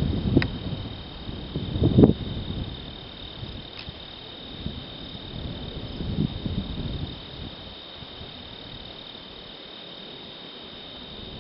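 Steady high-pitched insect chorus over wind buffeting the microphone; the wind gusts hardest about two seconds in and eases after about seven seconds, leaving the insects.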